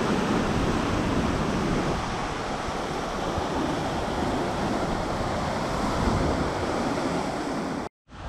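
Heavy sea surf surging and breaking into a narrow rocky inlet below a cliff, a steady churning rush of white water. It cuts out for a moment near the end.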